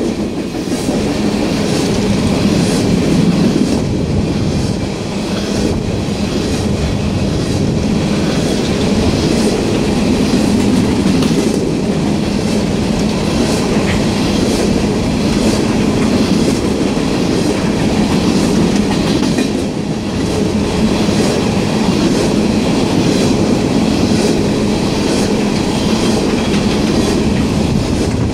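Coal train hopper cars rolling past. Steel wheels clack over the rail joints in a steady repeating rhythm over a constant rumble.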